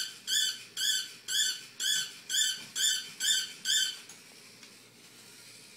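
Small robot toy dog sounding a repeating high-pitched electronic chirp, about two a second, that stops abruptly about four seconds in.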